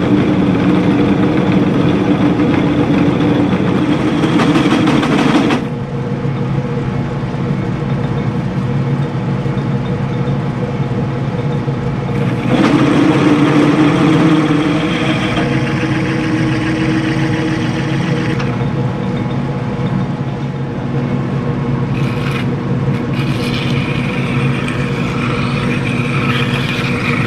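Metal lathe running with a steady hum while a 3/4-inch twist drill in the tailstock is fed slowly into the end cap of a spinning grease-gun barrel; the cutting noise swells twice as the drill bites. Near the end a hand deburring tool scrapes at the edge of the freshly drilled hole.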